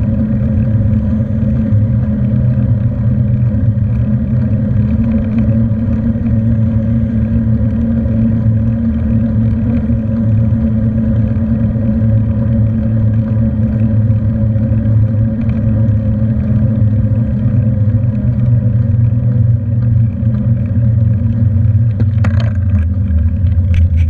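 Steady low rumble of riding a bicycle: wind and road noise on a handlebar-mounted camera, with a couple of short, sharper sounds near the end.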